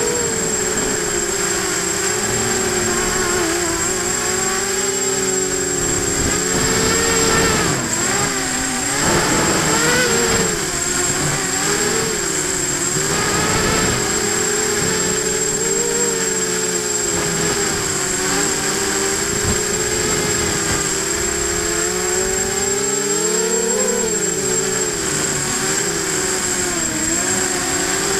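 Brushless motors and propellers of an FPV hexacopter whirring, the pitch rising and falling as the throttle changes in flight, with a steady high whine over it.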